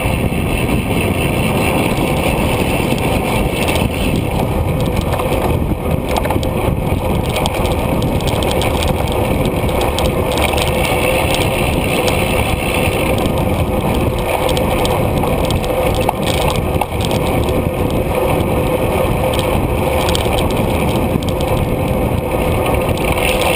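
Steady rush of wind and road noise on a bicycle-mounted GoPro while riding.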